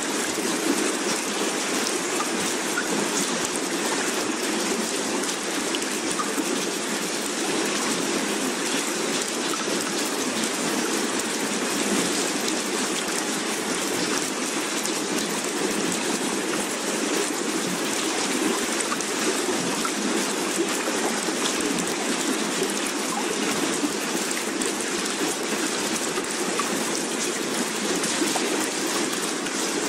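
Steady, even hiss of rushing water or rain, with no swells or pauses, used as a background ambience bed.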